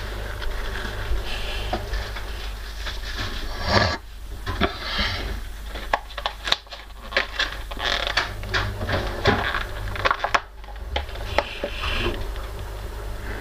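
Irregular sharp clicks and taps, several a second, from about four seconds in until near the end, over a steady low hum.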